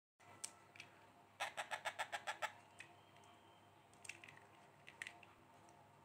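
A week-old Indian ringneck parrot chick giving a quick run of about nine soft squeaks, roughly eight a second, as it is hand-fed, followed by a few faint scattered clicks.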